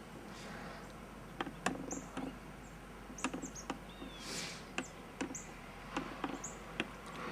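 Short, high chirps of small birds repeating every second or so, mixed with a dozen or so irregular sharp taps and knocks, and a brief rush of noise about four seconds in.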